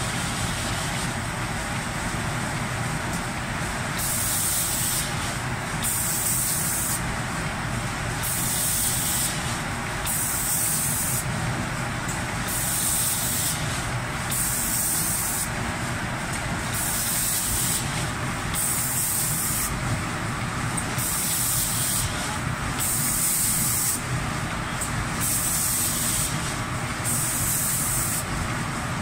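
Spray guns of an automatic cabinet-door paint spraying machine hissing in repeated on-off bursts of about a second each, roughly every one and a half seconds from about four seconds in, over a steady rush of machine noise.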